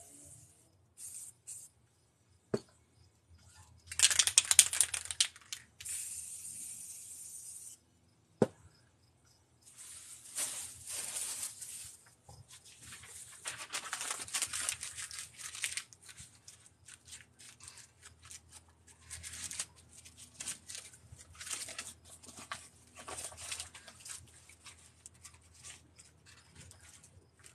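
Aerosol spray-paint can hissing in repeated bursts as paint is sprayed onto a canvas, some of several seconds and later many short ones, with two sharp clicks between them.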